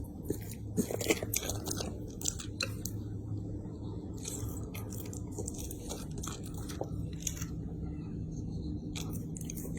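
Dog crunching and chewing a treat, with irregular sharp crunches and bites that come and go.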